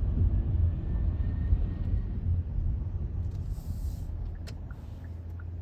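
Low road rumble of a car being driven, fading as it slows. Near the end comes a short hiss and a sharp click, followed by light, regular ticking about three times a second.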